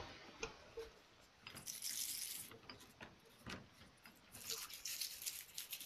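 Faint scrubbing with a small wire brush on steel taps and dies under water in a plastic tub, in two spells of scratchy hiss with a few small clicks and water sounds between.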